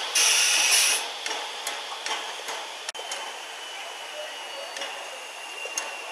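Train releasing compressed air in a short, loud hiss lasting just under a second. It is followed by quieter running noise with scattered clicks and, from about halfway, a faint steady high whine.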